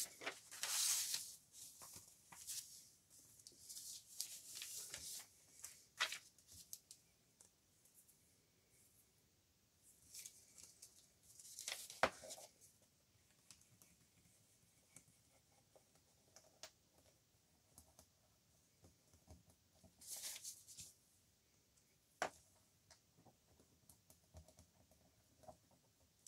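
Paper sheets being handled and shifted on a tabletop: scattered soft rustles with a few small taps and clicks, the loudest rustles near the start, about twelve seconds in and about twenty seconds in.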